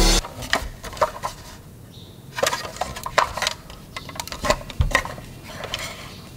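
Scattered light clicks and taps of small plastic toy cars being handled and set down.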